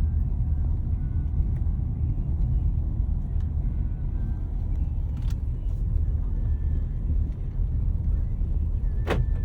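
Steady low rumble of a car driving, heard from inside the cabin. A brief sharp sound comes near the end.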